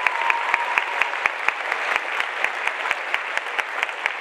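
Audience applause: many people clapping in a large hall, a dense steady patter of hand claps.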